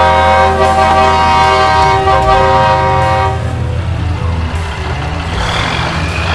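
A truck horn sounds one long steady blast of several notes together, cutting off about three seconds in, over the low rumble of the truck's engine and road noise inside the cab.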